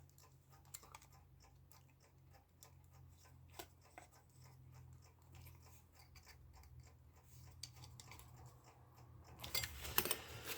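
Screwdriver tightening small screws on an electric clock movement's front plate: faint scattered metallic clicks and scratches, turning into louder scraping near the end.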